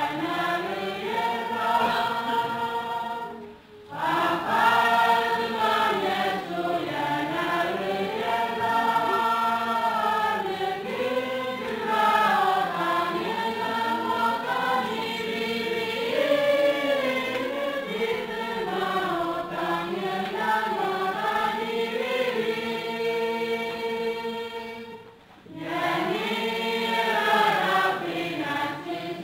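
A choir singing as the soundtrack, with two brief pauses between phrases, one a few seconds in and one near the end.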